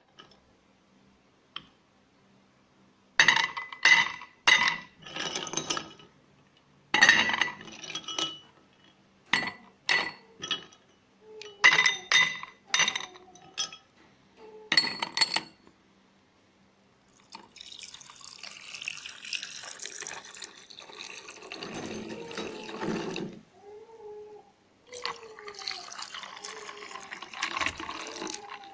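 Ice cubes dropped into two glass tumblers, a run of sharp clinks for about thirteen seconds. Then green gotu kola juice is poured into the glasses over the ice: a steady pouring splash, in two pours.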